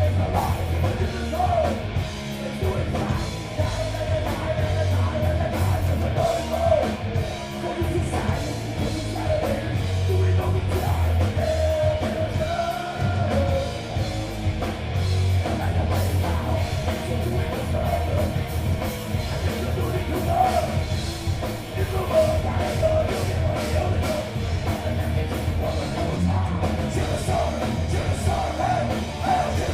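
Heavy metal band playing live: distorted guitars, bass and a pounding drum kit, with yelled vocals.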